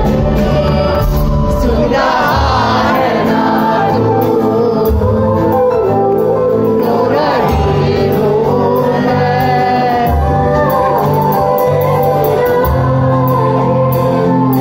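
A woman singing a Hindi film song live into a microphone, backed by a band on keyboards and drums. The sung line comes in about two seconds in over steady accompaniment.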